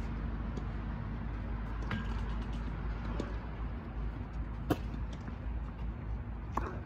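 Tennis balls being hit by rackets and bouncing on the court during a doubles point: a few short, sharp pops spaced a second or more apart, the loudest about two-thirds of the way in, over a steady low outdoor rumble.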